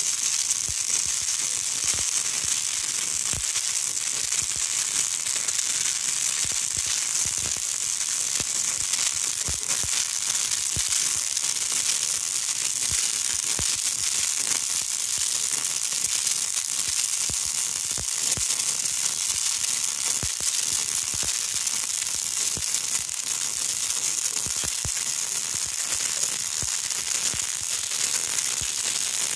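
MIG welding arc laying a continuous bead on steel: a steady crackling sizzle that runs without a break.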